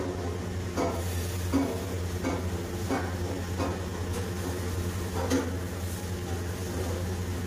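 Kitchen handling sounds at an aluminium cooking pot: a series of short knocks and clinks, one roughly every half to one second, over a steady low hum.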